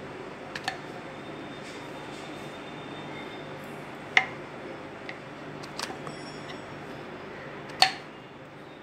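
Kitchen knife slicing through white button mushrooms and knocking on a wooden chopping board: a handful of sharp taps, the loudest a little past four seconds in and near the end.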